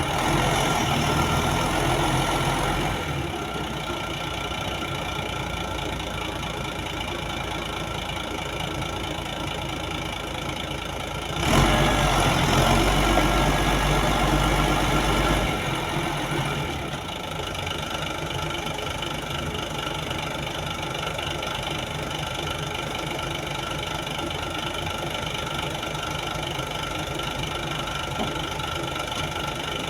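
A 55-ton crane's diesel engine running at idle and revving up twice: briefly at the start, and for about four seconds near the middle.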